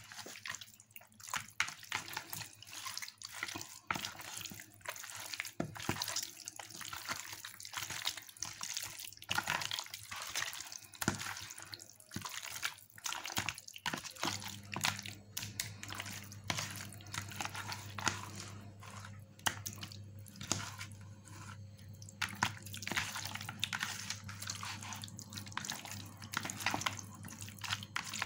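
Raw chicken pieces being kneaded by hand in a mayonnaise marinade in a plastic basin: continuous, irregular wet squelching and smacking. A low steady hum comes in about halfway through.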